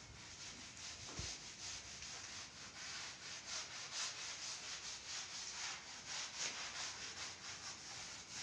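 Duster wiping chalk off a blackboard in quick, repeated back-and-forth rubbing strokes.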